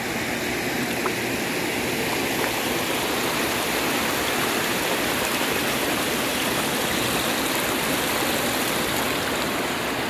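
Shallow mountain stream flowing over rocks and boulders: a steady, even rush of water.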